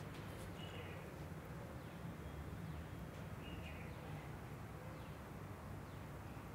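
Faint outdoor background: a steady low hum with a few short bird chirps.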